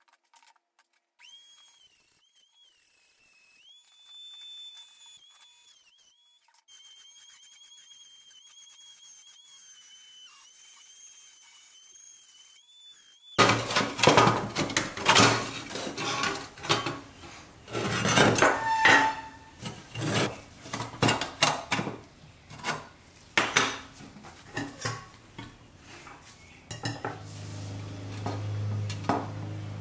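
Rusty pressed-steel toy body parts from a 1965 Nylint Bronco clinking and clattering against each other and the bench as they are handled and pulled apart, in a dense run of sharp metallic knocks from about halfway on. Before that only a faint, thin high whine that shifts pitch in steps is heard, and a steady low hum comes in near the end.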